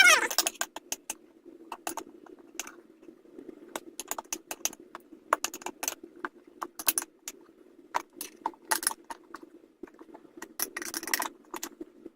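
Metal tire levers clicking, clinking and scraping against a small minibike wheel rim as a stiff new tire is worked onto it, with a brief squeak of lubed rubber at the start.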